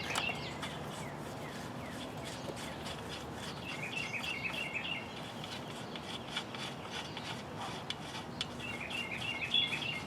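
Light rubbing and scattered faint clicks of a wrench working a bicycle's rear axle nut loose. A bird chirps twice in the background, about four and nine seconds in.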